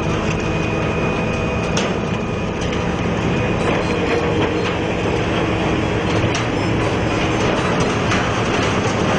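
Albach Diamant 2000 self-propelled wood chipper running steadily under load while its crane feeds brushwood into it, with scattered sharp cracks now and then.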